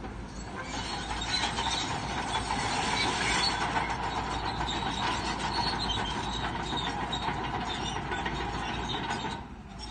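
Crawler bulldozer working: its diesel engine runs under load while the steel tracks clank continuously. The noise drops briefly near the end.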